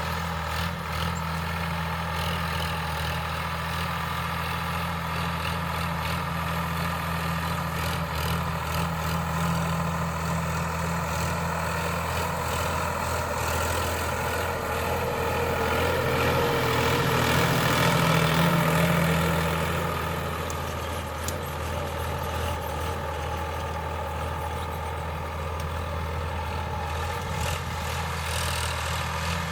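Sonalika DI 745 III tractor's diesel engine running steadily under ploughing load. It swells louder for a few seconds past the middle, then eases back.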